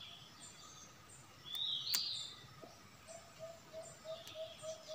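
Forest birds calling: one loud high chirp that rises and falls about two seconds in, with a sharp click at the same moment, then a rapid even series of short low notes, about four a second, from about three seconds in.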